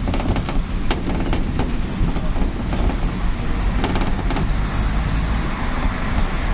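Steady rumble of highway road traffic, with a quick run of sharp clicks and knocks over the first few seconds.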